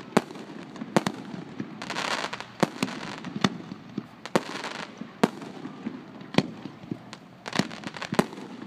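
Aerial fireworks shells bursting in a string of sharp booms, roughly one a second. Twice between the booms there is a spell of crackling.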